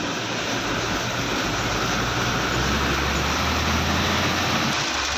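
Steady road traffic rumble with a broad hiss. A low engine drone swells about two seconds in and fades out near the end, like a heavy vehicle going past.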